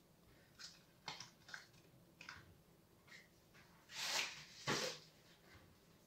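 Faint handling noises from hands working at a kitchen counter while laying out slices of cold cuts on bread and baking paper: a few light clicks and taps, then two louder brief rustles about four and five seconds in.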